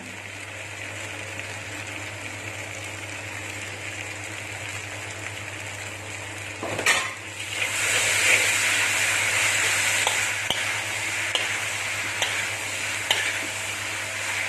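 Chilli chicken sizzling in a pan on high heat while it is stirred, with light scrapes and taps of the spoon. About seven seconds in there is a brief clatter and the sizzle gets louder, over a low steady hum.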